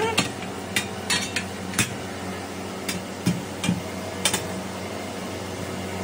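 Sharp metal clanks and knocks from a steel truck wheel rim being handled and shifted inside a large truck tyre, about a dozen irregular strikes mostly in the first four and a half seconds, over a steady low hum.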